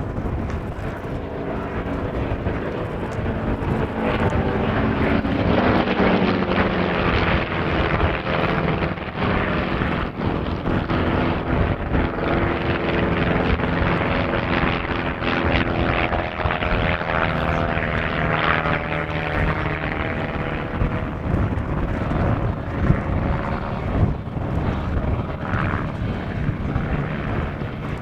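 Piston engines of propeller-driven aerobatic biplanes running through a display routine, the engine note sweeping in pitch as the planes pass, about five seconds in and again near the middle.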